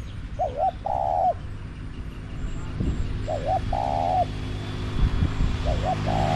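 Spotted dove cooing its phrase three times, about every three seconds: a quick two-part note followed by a longer held coo. Underneath, the low hum of a passing vehicle's engine grows louder toward the end.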